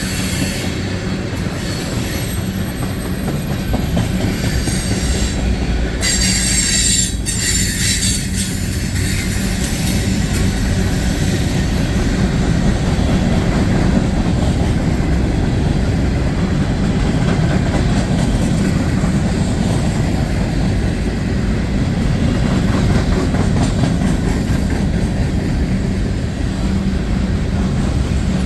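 A CN manifest freight train's cars rolling past with a steady, continuous rumble. Faint high-pitched wheel squeal comes and goes, about two seconds in and again around eleven to fourteen seconds in.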